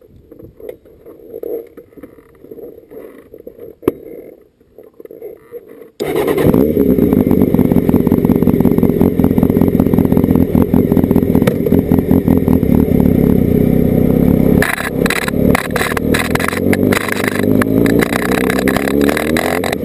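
Honda CB600F Hornet's inline-four engine, heard close to the rear wheel and exhaust. It is faint for the first few seconds, then comes in suddenly and loud about six seconds in and runs steadily with the bike standing. From about fifteen seconds in it pulls away, its pitch rising repeatedly as it accelerates.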